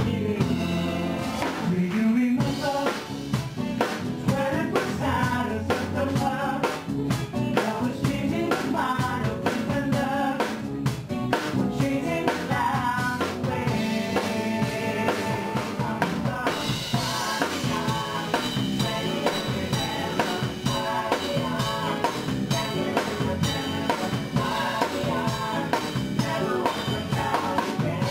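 Live pop performance: three male voices singing in harmony with a band, a drum kit keeping a steady beat.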